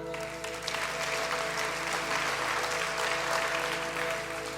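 Congregation applauding, swelling about a second in, over a soft sustained keyboard pad.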